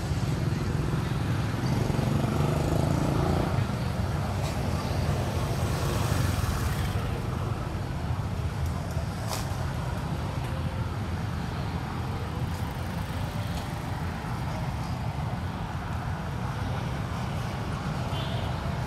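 Outdoor background ambience: a steady low rumble with a faint even hiss above it, with no distinct events.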